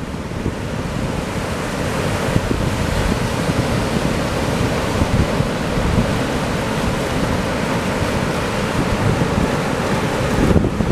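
Ocean surf breaking and washing in over sand and rocks at the shoreline, a steady rushing, with wind buffeting the microphone.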